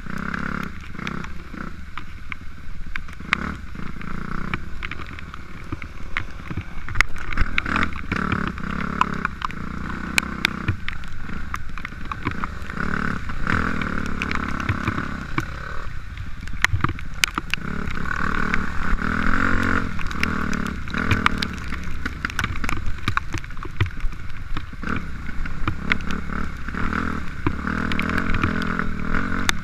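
Dirt bike engine revving up and down as it is ridden over a rough, muddy trail, with many sharp knocks and clicks from the bumps.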